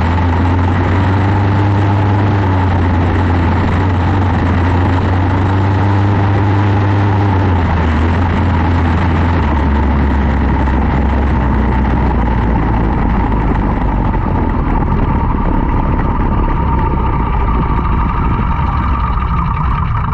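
Quarter midget race car's single-cylinder Briggs & Stratton Animal engine running loudly and steadily. The engine note drops in pitch about halfway through as the car eases off.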